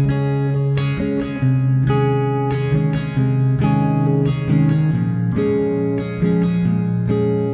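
Background music of plucked guitar notes over a low held bass note that changes pitch every second or two.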